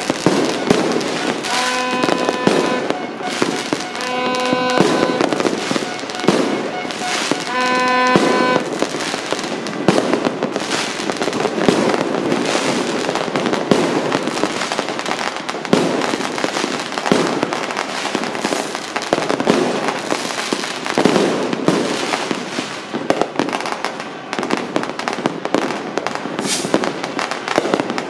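Non-stop New Year fireworks and firecrackers: a dense, continuous barrage of bangs and crackling. Over the first nine seconds or so, a steady-pitched horn blows three times.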